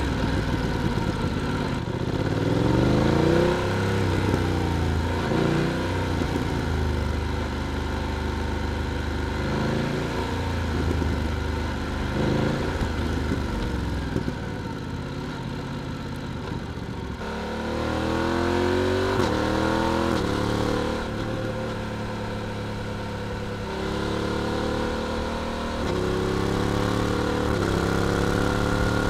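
BMW F900R parallel-twin engine and exhaust under way, pulling away several times: the pitch climbs and drops back at each upshift, with a quick run of shifts in the last ten seconds.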